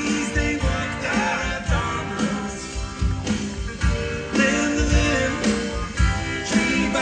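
Rock band playing live through a PA, heard from the crowd: electric guitar over a steady drum beat, with a man singing.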